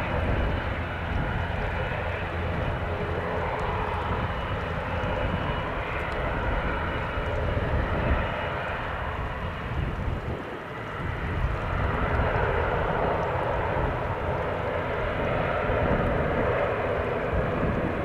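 An ATR 72-600's two Pratt & Whitney PW127 turboprop engines and propellers run steadily as the airliner taxis.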